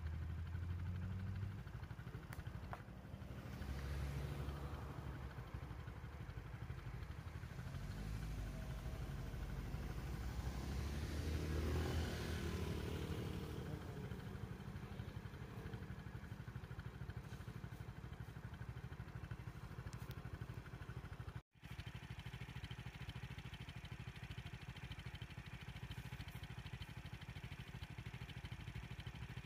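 Road vehicle engines and tyres, a vehicle passing slowly and loudest about twelve seconds in, over a low steady engine rumble. The sound cuts out for a split second about two-thirds of the way through.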